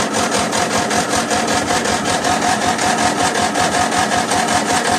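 Electric starter cranking the cold 13.5 horsepower Briggs & Stratton industrial/commercial engine of a 1997 MTD Yard Machines riding mower, without choke: a fast, even chugging with a steady whine over it, turning over without catching.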